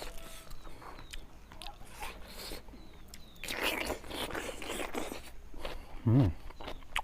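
Close-miked eating sounds of someone chewing a mouthful of fish curry, in two stretches of soft smacking and mouth noise, with a short voiced sound about six seconds in.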